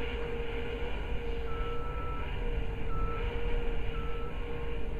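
Diesel engine of a Kershaw rail-mounted tie handler running, a deep rumble under a steady whine, with a higher tone cutting in briefly three times around the middle.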